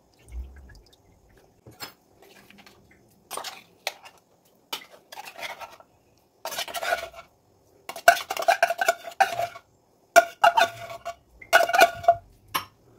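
Metal spoon scraping and clinking against the inside of an opened tuna tin as the flakes are scooped out. The strokes come in separate scrapes, louder and busier in the second half.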